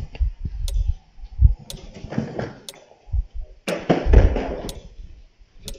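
Close rustling and low knocking of objects being handled, with two longer bursts about two and four seconds in, over sharp ticks that come about once a second.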